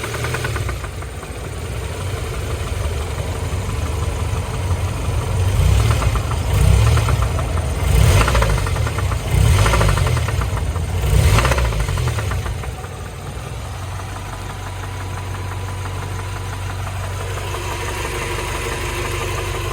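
Honda H22A 2.2-litre four-cylinder engine idling, then blipped to higher revs four times in quick succession before settling back to idle; the owner reports an abnormal engine noise.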